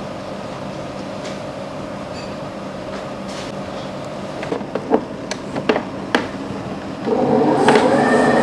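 Mito Pico Mixer MX-500 stand mixer: a steady motor hum with a few clicks and knocks, then about seven seconds in a louder running sound as the mixer starts beating butter, margarine and sugar at low speed.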